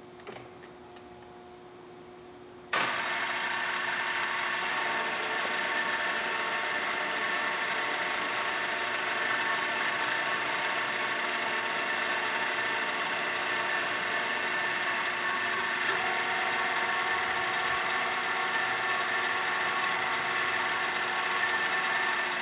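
Ikeda RM-1175 heavy-duty radial arm drill press spindle drive kicking in abruptly about three seconds in. It then runs steadily with a whine of several steady tones from its geared head, and the tone shifts slightly about sixteen seconds in as the spindle speed or direction is changed.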